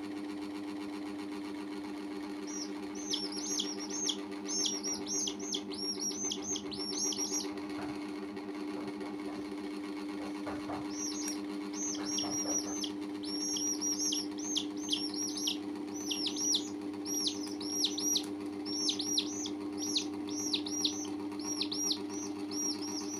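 Domestic chicks peeping: quick runs of short, high, falling peeps, several a second, in two bouts with a pause around the middle. Under them runs a steady low hum.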